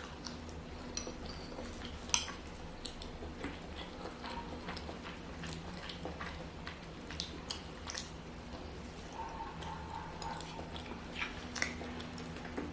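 Close-up eating of eight-treasure rice, a sticky glutinous rice pudding with red bean paste: scattered soft chewing and mouth sounds and utensil clicks against the dish, a few sharper ones now and then, over a low steady hum.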